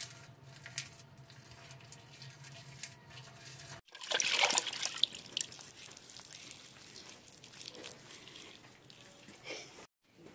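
Wet mud-and-straw plaster being smeared and patted by hand onto the wall of a clay grain silo, with soft wet rubbing and small slaps. The loudest smearing comes about four seconds in, after a quieter stretch of light taps over a low hum.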